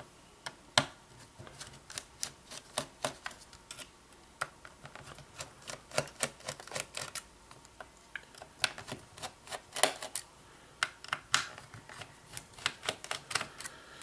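Small screwdriver turning the screws that hold a laptop's SSD in its bay, loosening them: irregular small metallic clicks and ticks, with a few sharper taps.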